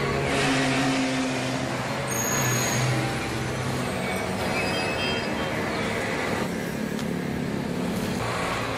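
Heavy vehicle engine running steadily, its low note shifting slightly in pitch, with a hiss over it.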